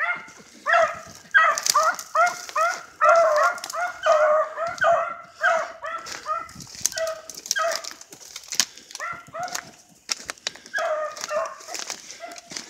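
Beagles giving tongue on a hot rabbit trail: quick, repeated yelping bays, several a second, thinning out in the middle, breaking off about ten seconds in and picking up again soon after. Brush crackles under the handler's feet.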